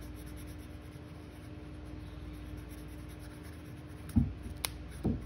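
Sharpie marker rubbing on paper, colouring in a small patch. Near the end come two soft low thumps with a sharp click between them.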